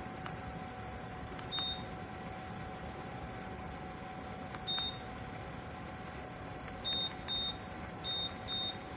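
Electric space heater's control beeping as buttons are pressed: six short high beeps, one about a second and a half in, one near five seconds, then two quick pairs near the end, each with a faint click. A steady background hiss runs underneath.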